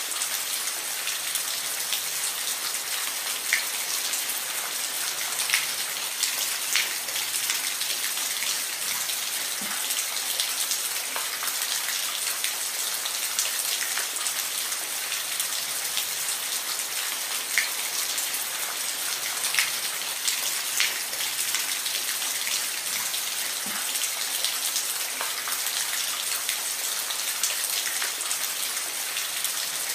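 Steady rain, a dense hiss with individual drops pattering now and then.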